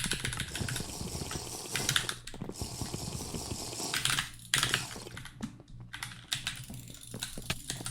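A rapid, irregular run of sharp clicks and taps, the loudest about two seconds in.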